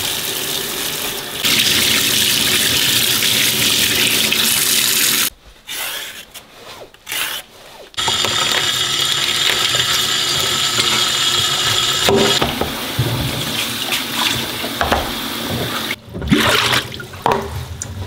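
Tap water running into a stainless steel sink and splashing over a cabbage as it is washed by hand. The flow breaks off for a few seconds about five seconds in, then runs steadily again, and turns patchy near the end.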